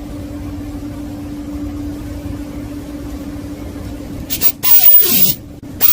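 A steady low hum, then about four seconds in two loud hissing blasts of compressed air from an air blow gun, the first about a second long and the second shorter. Each blast carries a whistle that falls in pitch.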